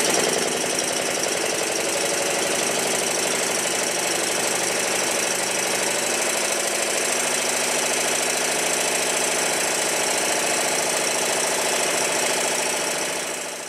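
Stuart triple expansion model steam engine running fast on compressed air during running-in: a steady, rapid mechanical clatter with hiss. The sound fades out near the end.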